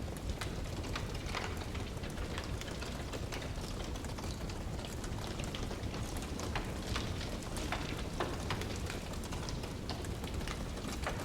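Wood fire crackling: irregular sharp pops and snaps scattered over a steady low rumbling hiss.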